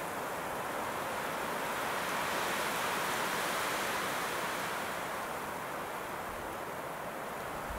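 Strong wind rushing through pine and birch treetops: a steady rush that swells a few seconds in and eases off toward the end.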